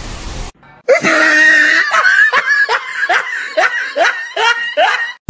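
A short hissing noise cuts off about half a second in. Then someone laughs hard in a run of quick, high-pitched laughs, about two or three a second.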